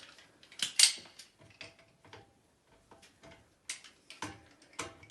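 A pair of metal wrenches clicking and clinking against a basin's plumbing fitting as it is tightened: irregular sharp clicks, some with a short metallic ring.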